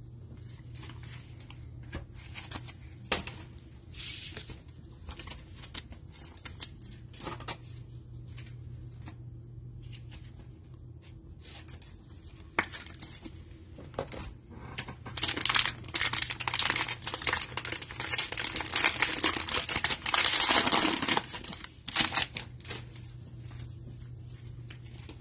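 Trading cards and a plastic sleeve being handled, with soft rustles and light clicks. About fifteen seconds in comes several seconds of loud crinkling and tearing as a card pack's wrapper is ripped open.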